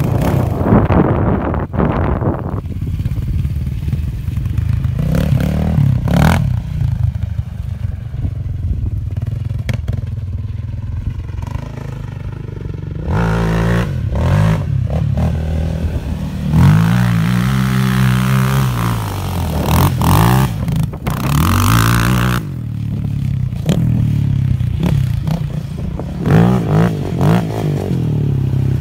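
Yamaha Raptor 700 sport ATV's single-cylinder four-stroke engine revving hard and easing off again and again as the quad is ridden up and over sand hills, its pitch climbing and dropping with each burst of throttle.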